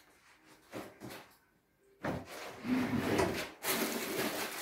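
Rubbing and scraping handling noises, like things being shifted and rummaged through, starting about two seconds in after a quiet start.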